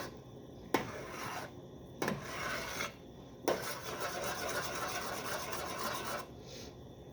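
A stirring utensil scraping and rubbing across the bottom of a saucepan as the fudge mixture is stirred constantly while it heats toward a boil. It comes in uneven stretches with short pauses, the longest about halfway through.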